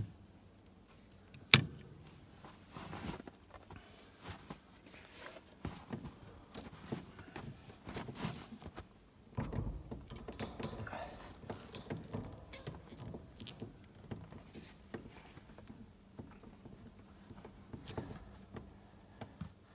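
Handling noises of clear plastic tubing being pushed and worked onto a metal ball-valve fitting: scattered small clicks, knocks and rubs. One sharp snap about a second and a half in is the loudest sound.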